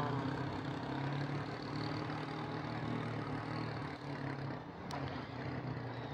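Steady low engine hum of an idling motor vehicle, over a constant background of traffic noise.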